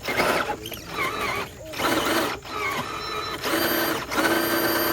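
Electric motor and gearbox of a scale RC rock-crawler truck whining in short throttle bursts, the pitch bending as it strains, then held in a steady whine for about a second and a half near the end.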